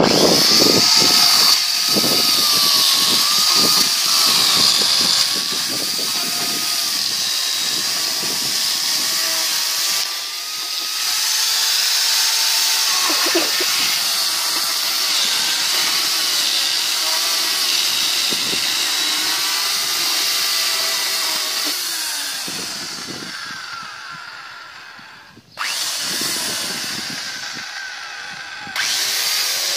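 INTERTOOL DT-2204 electric chainsaw cutting through a log, its motor whine rising and falling as the chain bites into the wood. The sound fades away about 25 seconds in, then the saw comes on again sharply, and once more near the end.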